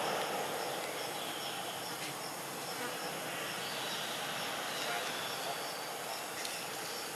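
Steady insect drone, with a faint high chirp repeating a few times a second.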